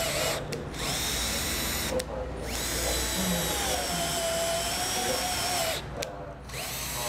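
Cordless drill motor whining steadily as it drives a tap into the end hole of an aluminium extrusion profile to cut a thread. The motor stops briefly about half a second in and again near the end, with a sharp click at about two seconds, and its pitch rises each time it picks up speed again.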